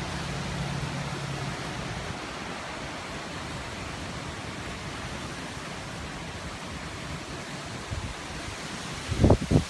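Hurricane wind and rain as a steady rushing hiss. Near the end a gust buffets the microphone with loud low thumps.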